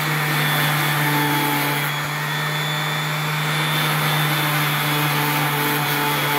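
DeWalt random orbital sander running at steady speed, its pad pressed on a thin hand-cut door-trim frame to sand it smooth: a constant motor hum under a dense sanding hiss.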